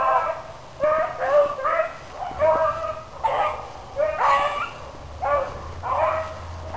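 Hounds baying in a string of short, repeated calls, about one to two a second, as they give voice on a rabbit's trail.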